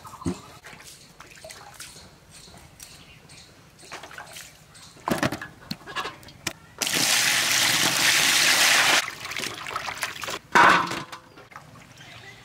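Water poured out in a steady stream for about two seconds, starting and stopping abruptly, with scattered splashes and knocks before and after.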